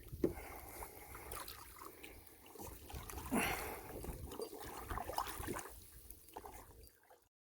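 Canoe paddle strokes in calm river water: soft, irregular dips and splashes with dripping, over a low rumble. The sound cuts off abruptly shortly before the end.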